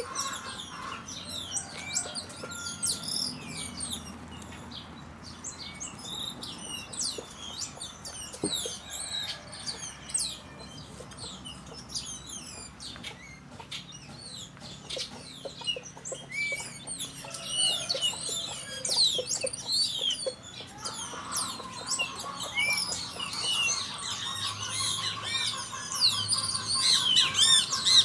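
A chorus of many small birds chirping and twittering, dense overlapping short calls, growing busier in the second half. A steady high hum-like tone joins about two-thirds of the way in.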